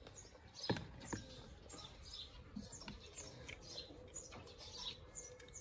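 Small birds chirping over and over, with two sharp clicks about a second in.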